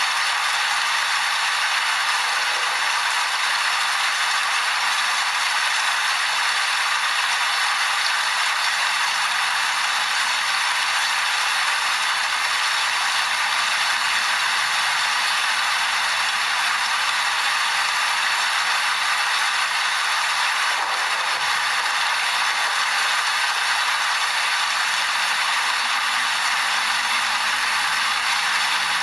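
Steady rain falling: an even hiss of many drops that does not let up or change.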